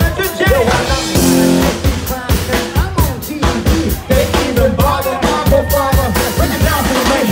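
Live rock band playing an upbeat song, the drum kit keeping a steady beat under guitar and melody lines.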